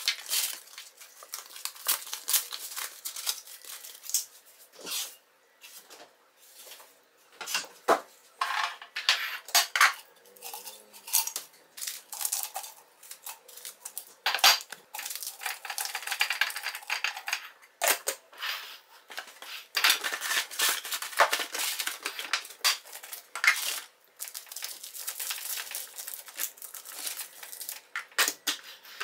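Paper tea-bag sachets and cardboard tea boxes rustling and crinkling as they are handled, with irregular clinks and taps of the sachets going into a glass jar.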